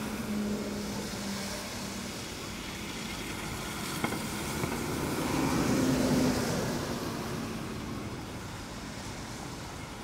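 Rainy city street traffic: vehicles running past on a wet road. A low engine hum sounds for the first two seconds, and one vehicle swells louder as it passes around the middle, then fades.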